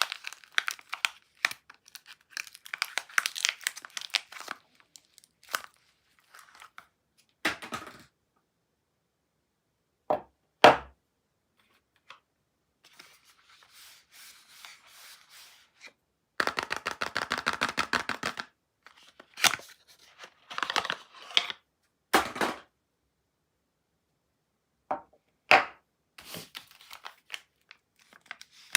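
Soap bars being unwrapped: wrappers crinkling and tearing in short bursts, with a long run of rapid tearing about halfway through. Several sharp knocks and clicks, the loudest a thump a little over ten seconds in, fall between stretches of silence.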